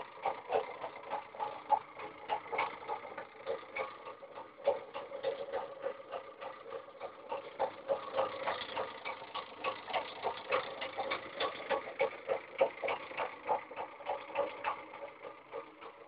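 Homemade reed-switch magnet motor running inside its cube enclosure: a steady hum with rapid, uneven clicking, several clicks a second.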